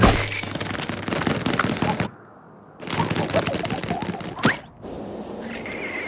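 Cartoon sound effects: a sharp hit, then a fast sputtering rattle that breaks off after about two seconds, starts again after a short pause, and is cut by a quick whoosh.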